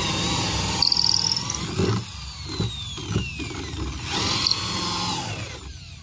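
Electric hand drill boring a hole with a slightly larger bit. It runs in two spells, the second starting about four seconds in, and its whine slides down in pitch as it loads up.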